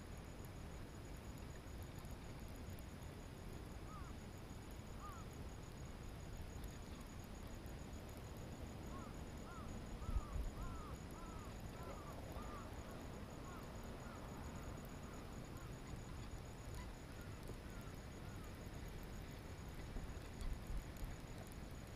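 A bird calls in short, arched chirping notes: a few about four seconds in, then a quick run of them through the middle. Underneath is a steady low rumble of wind and handling, with a couple of soft bumps.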